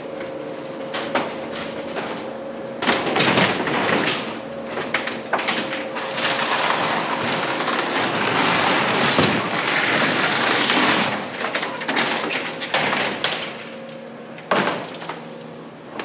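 A storm-wrecked barn door of wood and corrugated steel being torn out and crushed by a loader: a long stretch of crushing and scraping steel and wood, loudest in the middle, with sharp knocks about three seconds in and near the end. A steady machine hum runs underneath.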